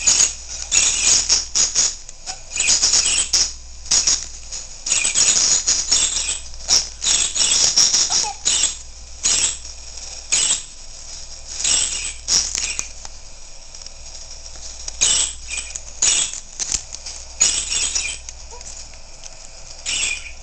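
Sun conure flapping its wings in repeated short, irregular bouts, a rapid feathery flutter broken by sharp clicks.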